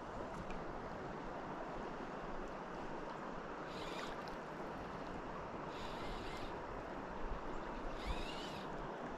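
River water flowing steadily. From about four seconds in, a short high-pitched sound with a slight rise and fall in pitch comes roughly every two seconds.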